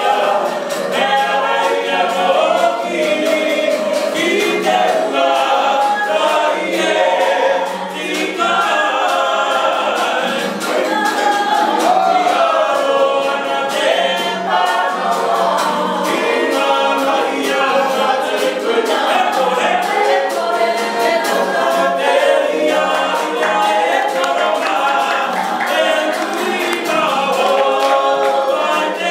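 Mixed group of Māori performers singing a poi song together in chorus to a strummed acoustic guitar, with the rhythmic slaps of swung poi.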